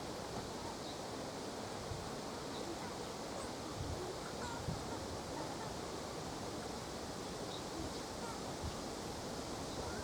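Steady wind blowing, a constant rushing noise with occasional low buffets of wind on the microphone and a few faint short chirps.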